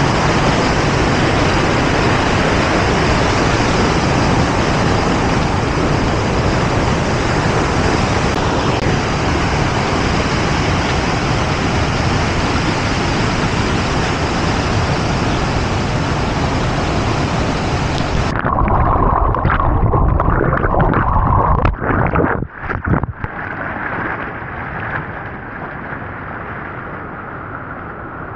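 Loud, steady rush of a waterfall. About eighteen seconds in it cuts off abruptly to a quieter hiss with a few knocks and bumps.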